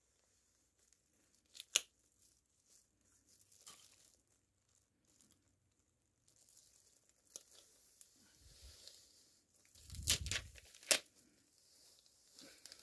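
Clear plastic carrier film of a PU heat-transfer print being peeled slowly off a padded nylon jacket once the hot-melt adhesive has cooled, with faint, scattered crackles and rustles of the film and thin plastic gloves. The loudest crackles come about 10 and 11 seconds in, with a dull thump between them.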